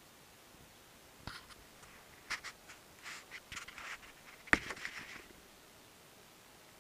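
Handling noise of a small camera being picked up and set down close to the microphone: a scattering of scrapes, rustles and clicks, with one sharp knock about four and a half seconds in.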